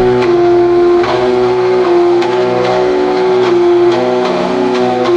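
Background music: held notes that change pitch every second or so, over a light beat.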